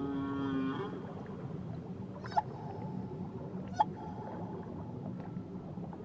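Whale calls heard underwater. A long, low held call ends about a second in. Then come two short, sharp calls about a second and a half apart, each running on into a brief higher held tone, over a steady wash of water noise.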